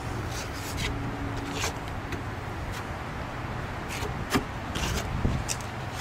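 Workshop handling noise: scattered clicks, rubs and knocks of parts and tools being worked, with one sharp knock a little past the middle, over a steady low hum.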